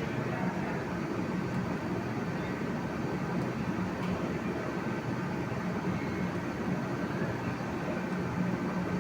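TIG welding arc running steadily: an even hiss with a constant low hum.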